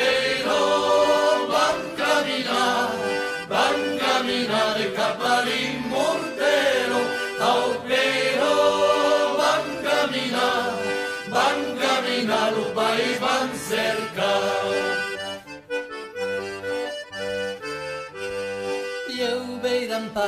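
Instrumental passage of a traditional folk song, led by accordion, with no sung words. The sound thins out about three-quarters of the way through.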